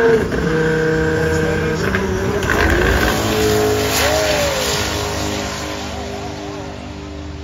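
Twin-turbo Dodge Challenger Scat Pack and a Lamborghini launching side by side down a drag strip at full throttle. The engines come in suddenly loud, with a brief rising-and-falling whine about four seconds in, and fade as the cars pull away.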